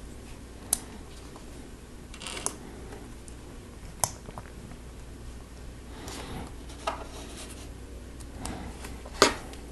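Plastic Lego Technic pieces being handled and snapped together. There are about five sharp clicks spaced a second or two apart among soft rustling, and the loudest click comes near the end.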